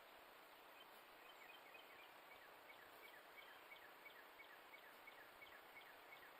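Faint bird calling a run of short, falling chirps, about three a second, starting about a second in, over a steady faint hiss.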